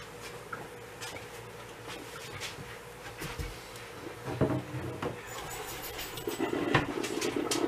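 Knocks and clicks of a wooden kitchen cabinet door and a glass bottle being handled while the bottle is taken down from an upper cupboard. The loudest knocks come about halfway through and again near the end.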